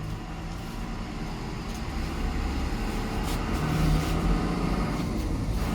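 Road traffic going past: a steady low engine rumble that grows a little louder near the end.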